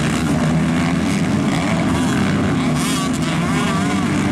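A pack of MX2 motocross bikes racing up a hill together, many engines revving at once, their pitches rising and falling over one another.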